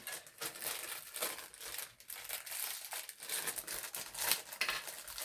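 Plastic packaging crinkling and rustling in a steady run of small irregular crackles as a new toilet fill valve is unwrapped.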